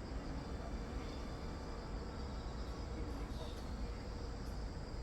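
Outdoor ambience: a steady low rumble with faint insect chirring.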